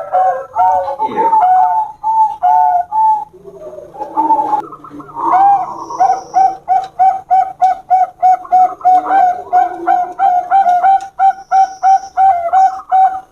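Zebra doves (Bangkok perkutut) cooing in a duel. Their rapid, repeated, bubbling notes come several a second, two birds at times overlapping, with a short jumbled break about a third of the way in before a long unbroken run.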